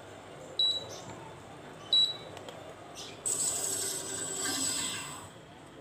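Split-AC indoor unit's control board beeping twice, short high beeps about a second and a half apart, as the set temperature is stepped down by remote. Then about two seconds of scraping, rustling handling noise on the unit.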